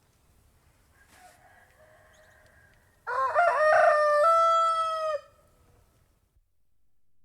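A domestic rooster crows once, about three seconds in. The call is broken and wavering at first, then holds a steady note for about a second before stopping. A fainter call comes before it.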